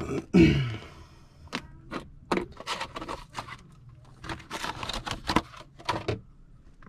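A short falling voiced grunt, then a scattered run of sharp clicks and scrapes from hands working with wires and small tools.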